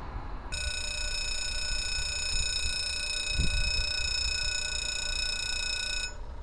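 Level-crossing warning ringer sounding one steady electronic tone that starts half a second in and cuts off suddenly about six seconds in. A dull thump comes near the middle.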